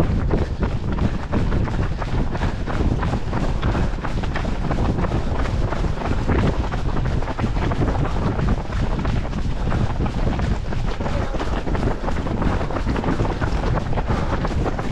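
Wind buffeting the microphone of a runner's body-worn GoPro action camera, a steady low rumble, with the runner's footfalls showing through as repeated soft thuds.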